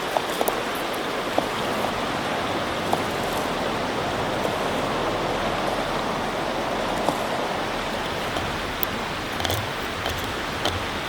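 Swollen river rushing steadily, loud from high water. A few small clicks sound close by now and then.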